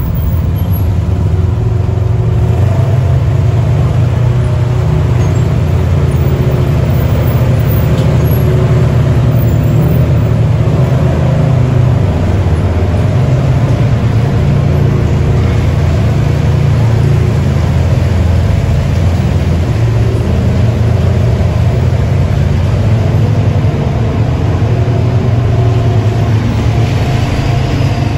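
Side-by-side UTV engine running steadily, heard from on board.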